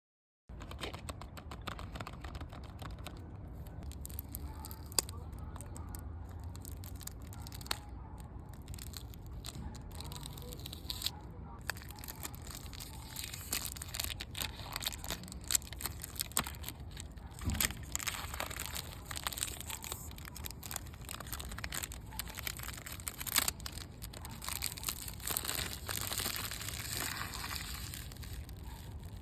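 Fragrance packaging being unwrapped and handled: crinkling and tearing of wrapping, with scattered clicks and crackles.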